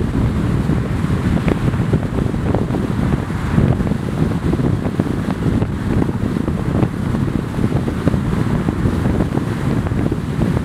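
Wind buffeting a microphone held outside the window of a car moving at highway speed, a constant low rumbling rush with road noise underneath.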